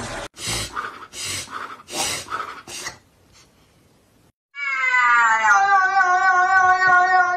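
A domestic cat's long, drawn-out yowl, one loud steady call starting about two-thirds of the way in and still going at the end. Before it come five short breathy bursts about half a second apart, then a brief lull.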